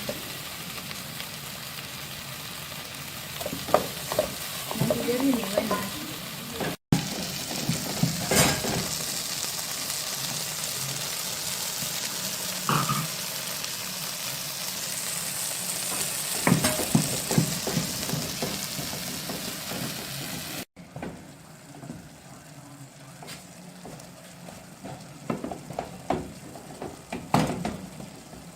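Food sizzling in a hot frying pan and being stirred, with the spatula knocking and scraping against the pan now and then. The sizzle breaks off abruptly twice and is quieter after the second break.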